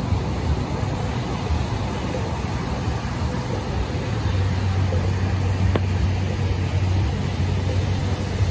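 Ocean surf breaking and washing ashore, a steady rushing noise, with wind rumbling on the microphone that gets heavier about four seconds in.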